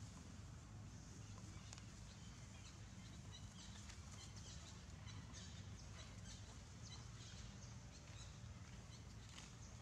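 Near silence: a faint steady low hum with scattered faint, short high ticks and chirps.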